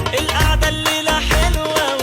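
Arabic pop song in Egyptian dialect: a wavering melodic line over a heavy bass beat that pulses about twice a second.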